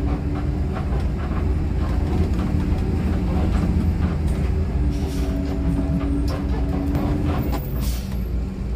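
Coach bus engine running with a steady low rumble, a hum that comes and goes twice, and light rattles and clicks.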